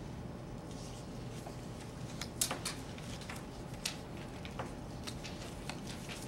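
Scattered small clicks and scratches of pens and paper as a room of people writes, over a steady low hum of room tone. The sharpest clicks come about two and a half and four seconds in.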